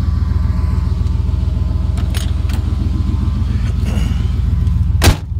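Vehicle engine running steadily with a low drone, with a few faint ticks and one sharp, loud click about five seconds in.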